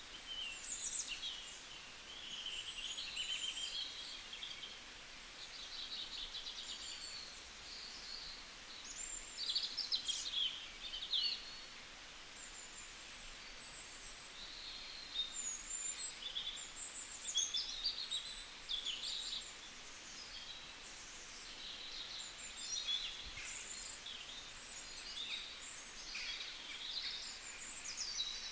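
Several songbirds chirping, trilling and whistling at once, high-pitched calls overlapping continuously over a faint steady background hiss.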